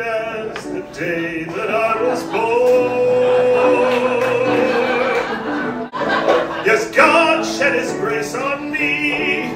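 A man singing into a microphone with piano accompaniment, holding one long note for about three seconds in the middle; after a brief break, the singing carries on.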